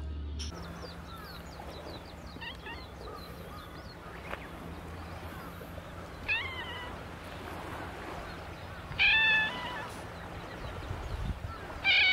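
Black-and-white cat meowing three times: a short meow about six seconds in, then two loud ones about nine seconds in and at the very end.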